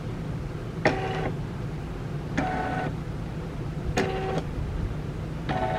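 Bernina Deco 500 embroidery-only machine in trial mode: the embroidery arm's motors move the hoop around the outline of the design without stitching. The moves come as four short whirs about a second and a half apart, over a steady low hum.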